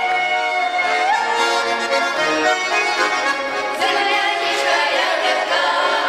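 Garmon-style button accordion playing a Russian folk tune, with singing voices joining in near the end.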